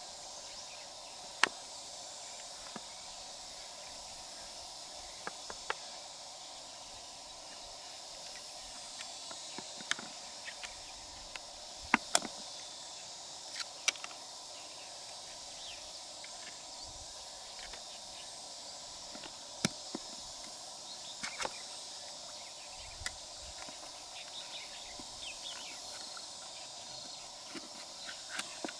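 Sharp clicks and knocks, about a dozen, scattered irregularly over a steady outdoor background hiss.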